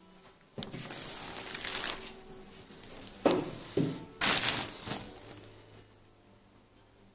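Plastic packing sheet crinkling as it is handled, in two spells, with two dull knocks between them.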